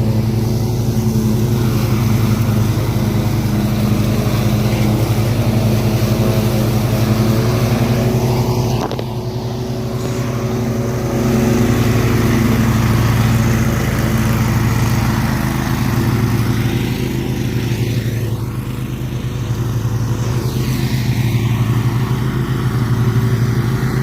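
Engine running steadily close by, its level dipping briefly about nine seconds in before picking back up.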